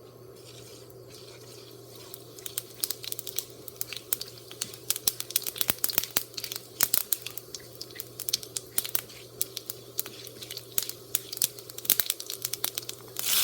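Mustard and cumin seeds crackling and popping in hot olive oil in a pan. They give sharp, irregular pops that come thicker after about two seconds: the tempering stage of an Indian curry.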